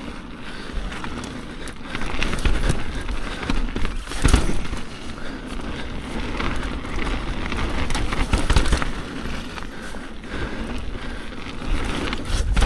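Mountain bike descending a wet, rough trail: tyres rolling over dirt and roots with frequent knocks and rattles from the bike, swelling louder over the rougher sections.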